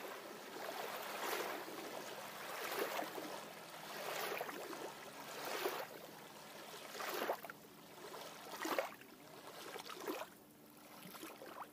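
Water washing in repeated swishes, about one every one and a half seconds.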